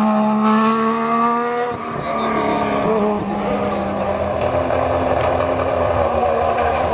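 Hillclimb racing car engines at full throttle. A sports prototype's engine note rises for nearly two seconds. After a break, a rougher engine sound follows as another car climbs the road.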